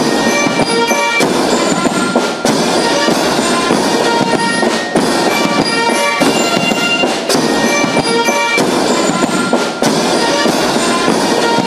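Background music with a steady beat, a strong accent about every second and a quarter.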